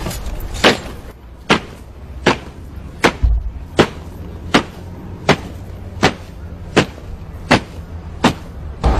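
Boots of a flag guard marching in step, striking the ground in unison: about twelve sharp stamps, evenly spaced, a little more than one a second.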